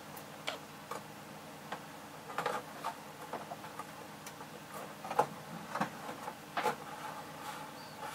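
Irregular light clicks, taps and rustles of fingers working in a wall's switch opening, handling the switch and fishing out the thermostat wire bundled behind it; the sharpest click comes about five seconds in.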